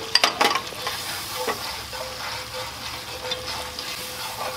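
Butter, lime, sriracha and honey sauce sizzling and simmering in a hot skillet as it is stirred, with a few sharp utensil clicks against the pan in the first half second.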